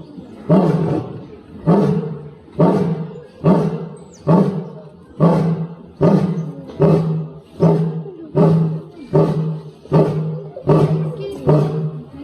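Lion roaring: a long run of about fifteen short, deep grunting roars, each starting sharply and fading, spaced a little under a second apart and coming slightly faster as the run goes on, the grunt series of a lion's roaring bout.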